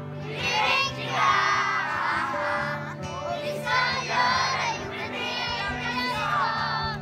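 Children's choir singing a song together in sung phrases.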